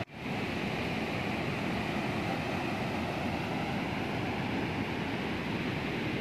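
Steady rushing of a swollen, flood-fed stream, an even roar of water with no pauses, after a brief dropout at the very start.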